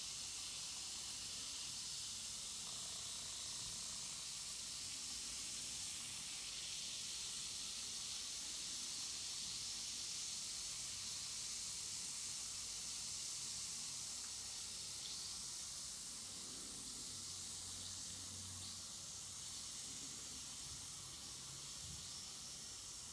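Carbonated bath bomb fizzing as it dissolves in water: a steady high hiss of bursting bubbles that eases slightly near the end.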